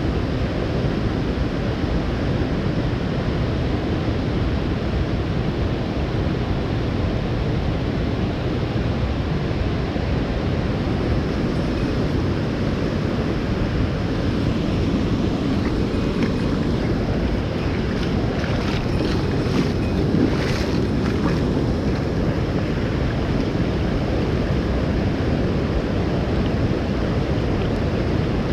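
Steady rush of a mountain stream's water, deep and unbroken, with a few faint clicks about two-thirds of the way through.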